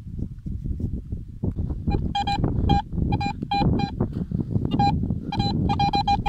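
Metal detector giving a dozen or so short mid-pitched beeps in quick clusters, starting about two seconds in, as its search coil passes over a buried metal target. Under the beeps is a continuous low rumble.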